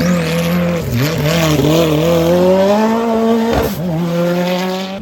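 Rally car engine running hard, its revs wavering and then climbing steadily. About three and a half seconds in there is a sharp crack and a sudden drop in pitch, then it pulls on at a steady note.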